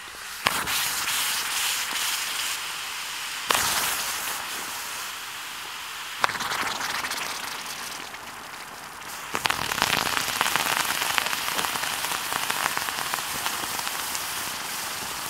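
Red-hot rocks dropped into water in a hollowed-out log burn bowl, four times about three seconds apart, each landing with a sharp splash and setting off a hissing, crackling boil that slowly fades: rock boiling to make the water safe to drink.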